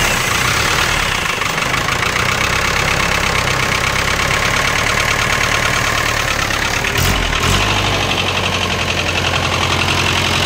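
Isuzu 4BB1 four-cylinder diesel engine idling steadily, running just after being started.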